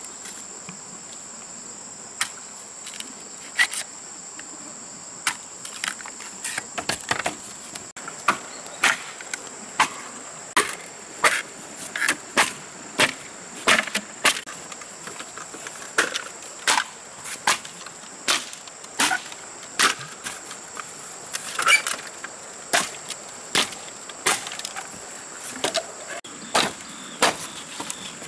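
Machete chopping green bamboo poles: sharp woody strikes, a few scattered at first, then a steady run of a little over one a second from about six seconds in. A steady high insect drone runs underneath.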